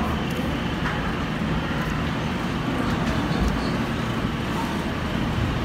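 Steady low rumbling background noise, unchanging throughout.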